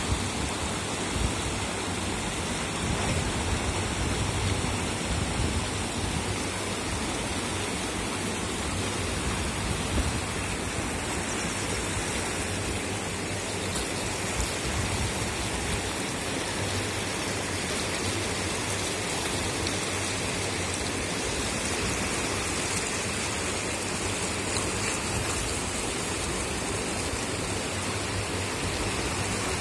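River in flood, brown water rushing and churning in turbulent rapids: a steady, even rush of water.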